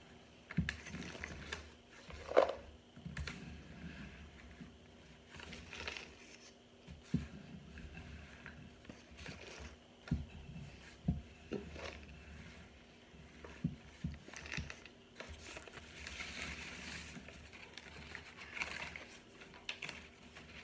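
Air-fryer-toasted cornstarch chunks being crumbled by hand and chewed: scattered soft crunches and clicks every second or so, one sharper and louder about two seconds in, with powdery rustling of the bag of chunks.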